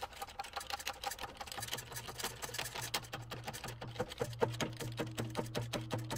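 Shop press running with a rapid, even ticking chatter and a steady low hum that comes in about a second and a half in, while it presses a wheel hub into a new front wheel bearing in a 3rd-gen Toyota 4Runner steering knuckle.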